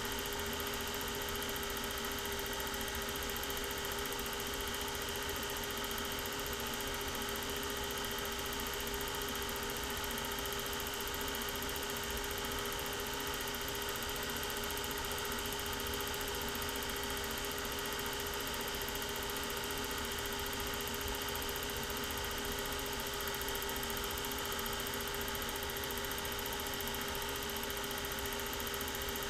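Steady hum of a running film projector, its motor and fan droning at one constant pitch without change.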